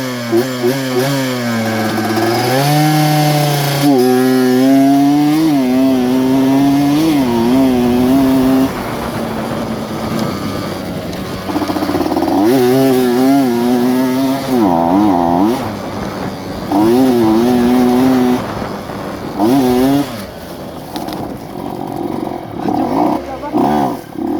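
Two-stroke Yamaha F1Z-R engine in a modified underbone motorcycle, ridden with the revs rising and falling again and again, with quieter stretches between the louder pulls.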